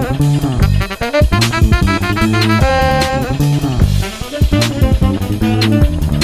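Background music: a jazzy instrumental with horn-like melody notes over a steady drum beat.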